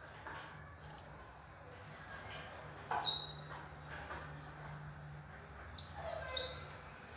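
Canaries giving short, sharp chirping calls, a few at a time, every couple of seconds over a low steady hum.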